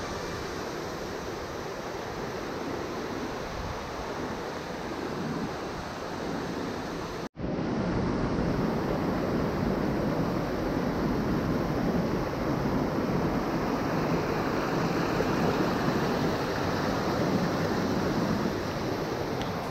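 Steady rushing of a waterfall and the white water churning in the rocky pool below it. The sound cuts out for an instant about seven seconds in and comes back louder.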